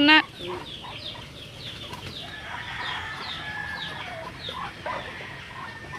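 Backyard poultry calling: a run of short, high, falling peeps, a few every second, with a few lower clucks among them.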